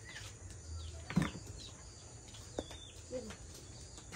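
Birds chirping now and then, short calls that slide down in pitch, with a couple of light knocks from work at the table.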